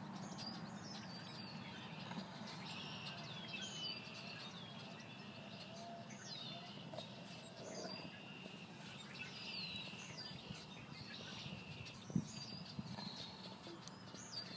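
Faint background birdsong: repeated short chirps and falling notes from small birds, over a low steady outdoor hum.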